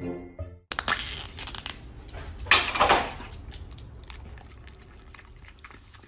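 Foil lid being peeled off a small plastic yogurt cup: crinkling and tearing, loudest about two and a half seconds in, then softer crinkles fading away.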